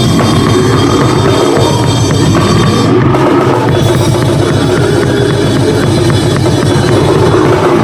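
Loud goregrind music: a dense, unbroken wall of noise over very fast, packed drumming.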